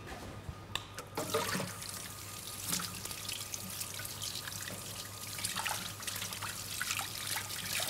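Tap water running into a sink as hands are rinsed under it, starting about a second in.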